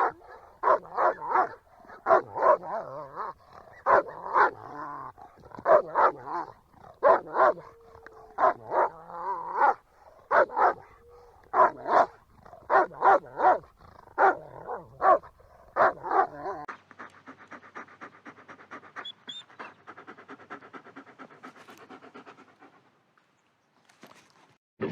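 A dog barking repeatedly in quick groups for most of the clip, then switching to fast, steady panting for several seconds that fades out near the end.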